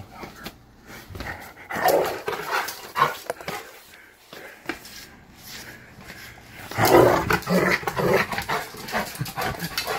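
Rottweiler growling and barking in rough play as it mouths a person's hand, in irregular bursts, loudest about seven seconds in.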